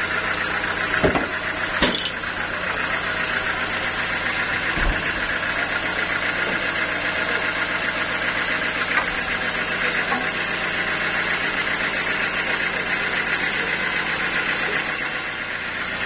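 Sawmill machinery running with a steady hum. A few sharp knocks about one, two and five seconds in come from the large teak log being shifted on the saw carriage.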